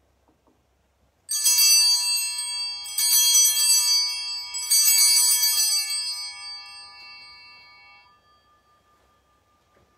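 Altar bells rung three times, about a second and a half apart, each ring a bright cluster of high tones that dies away over a few seconds. They are rung at the elevation of the consecrated host during the Eucharistic Prayer.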